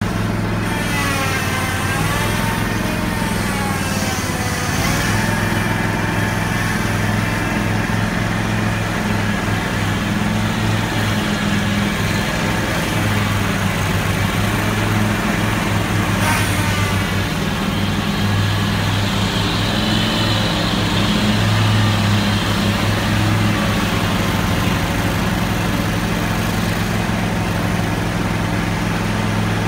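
61-inch Scag Cheetah zero-turn mower with its 34-horsepower engine running steadily at mowing speed, a continuous, even engine hum.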